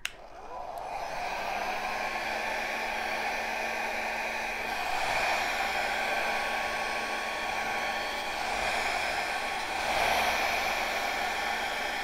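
Handheld electric hair dryer switched on, its motor spinning up over the first second, then blowing steadily with a constant hum, pushing wet acrylic pour paint across the canvas.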